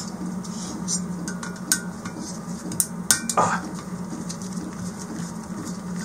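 Scattered metallic clicks and clinks of a driver working the bolts of a Chinese diesel heater's burner/blower motor assembly, the tool tapping against the metal housing. A steady low hum runs underneath.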